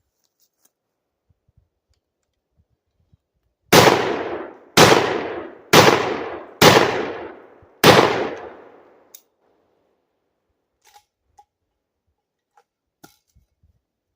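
Five shots from a Hatsan Escort SDX12 semi-automatic 12-gauge shotgun fired in quick succession, about one a second. Each shot rings off in a long fading echo.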